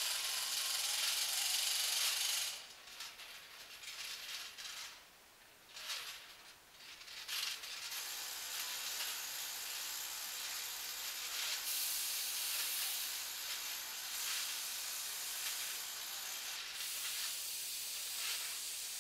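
Steam hissing from the vents of the Man Engine, a giant mechanical miner puppet. The hiss is loud at first, drops away about two and a half seconds in with only brief gusts, then runs steadily again from about eight seconds on.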